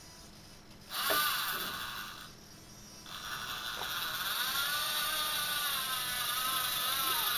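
Electric motor and gearbox of a six-wheel-drive RC scale crawler whining. First comes a short burst about a second in, then from about halfway a longer run whose pitch rises and falls with the throttle as the truck works its way down a step.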